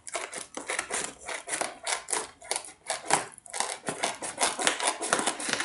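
Scissors cutting open a gold metallic foil bubble mailer: a quick, uneven run of many short snips.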